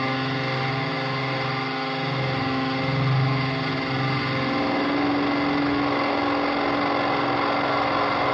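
Droning experimental music score: layered sustained tones with no beat. A low tone drops away about halfway through while higher tones swell.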